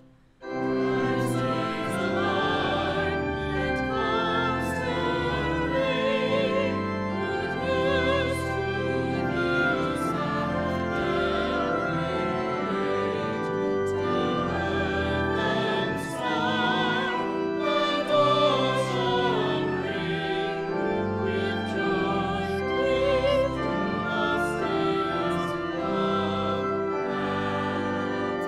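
A small vocal ensemble singing with vibrato, accompanied by organ and a woodwind, starting about half a second in after a brief silence.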